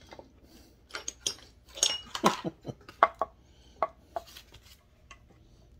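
Small metal hand tools and hard plastic chainsaw housing parts being handled on a workbench: a dozen or so sharp clicks and clinks, bunched between about one second in and four seconds in.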